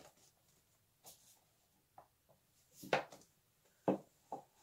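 Books handled on a bookshelf, slid out and pushed back among the others: a few short knocks and scrapes, the loudest about three seconds in.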